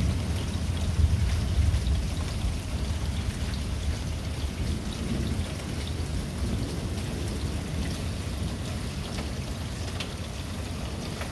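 Steady rain falling during a thunderstorm, with scattered drop ticks over a low rumble that is heaviest in the first few seconds.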